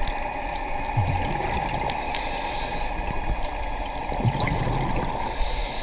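Underwater sound picked up by a GoPro in its waterproof housing: a steady hiss with scattered faint clicks, and low bubbling surges about a second in and again after four seconds.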